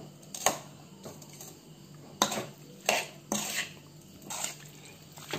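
Metal spoon scraping and knocking against a metal kadai as raw chicken pieces, onion and spices are stirred together, about six separate strokes. The burner is not yet lit, so the mix is being stirred cold and there is no sizzle.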